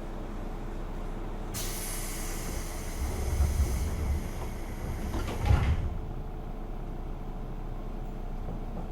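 Pneumatic sliding doors of a JR West 201 series train car working at a station stop. A hiss of compressed air starts about a second and a half in and stops about four seconds in. Heavy thuds come at about three and a half and five and a half seconds, the later one the loudest.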